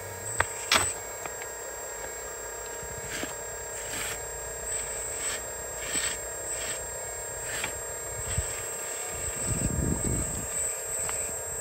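Radio-controlled model Hitachi Zaxis 360H excavator crawling down a trailer ramp onto concrete: a steady motor whine with its steel tracks clicking and scraping, two sharp clicks near the start and a low rumble about ten seconds in.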